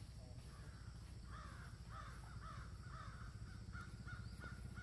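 A young monkey giving a run of short, arching squeaky calls, about two a second, starting about a second in and stopping near the end, over a low steady hum.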